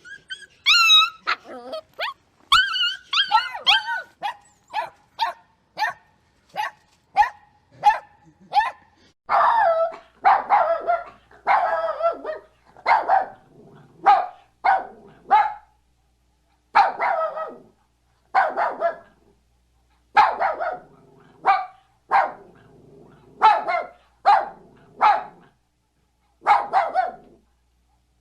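A puppy yipping and barking. It starts with a few high whining yelps, then gives short yips about once a second, and from about nine seconds in gives fuller barks, singly and in quick pairs, with short pauses between.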